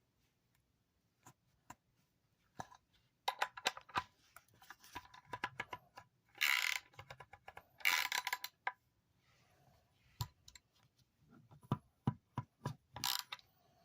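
Metal hand tools working a fastener on a salvaged electric motor: a run of sharp metallic clicks and taps, with two short loud rasps about six and a half and eight seconds in, and more clicks near the end. The part is stuck and will not come off.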